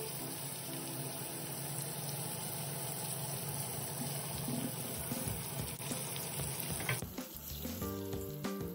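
Salmon fillets frying in a pan of hot oil: a steady sizzle. About seven seconds in, the sizzle drops to a quieter, crackling fry.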